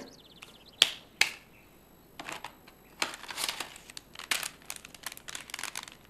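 Paper or plastic packaging crinkling and rustling in short bursts as it is handled at a table, after two sharp clicks about a second in.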